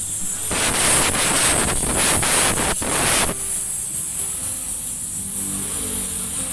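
Electric welding arc crackling and hissing in one stretch of about three seconds, starting about half a second in, as steel exhaust pipe is welded.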